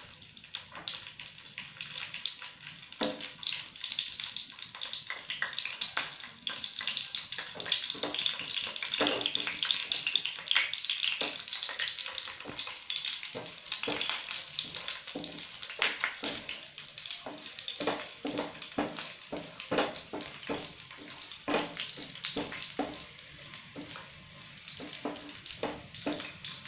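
Crushed garlic cloves sizzling and crackling in hot oil in a nonstick frying pan, growing louder over the first few seconds, with sharp spattering pops throughout. A wooden spatula stirs the garlic now and then.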